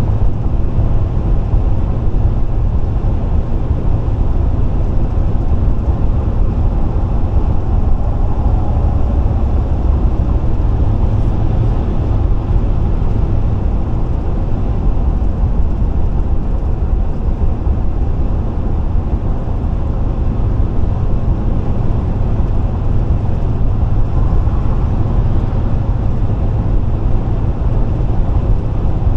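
Steady road and engine noise of a vehicle cruising at highway speed, heard from inside the cabin as a constant low drone with tyre hiss.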